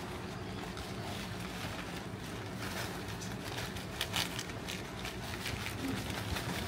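Granola clusters shaken out of a plastic zip-top bag into a bowl, with a few soft rattles and bag crinkles from about four seconds in, over a steady low hum.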